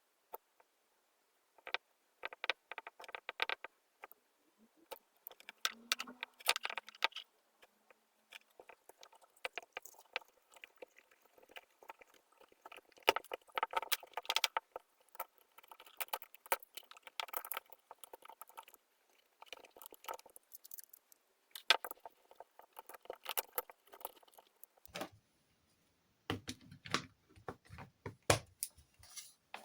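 Heat-resistant electrical tape being peeled off its roll and wrapped around the heat element's connections, in irregular crackling, screechy strips, with clicks and rattles from handling the hot air station's handpiece. Fuller knocks and handling noise near the end.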